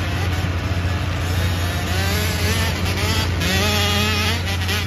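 Several 110cc pit bike engines revving across a dirt track, their pitch rising and falling as the riders accelerate and shift, clearest in the second half. A steady low hum runs underneath.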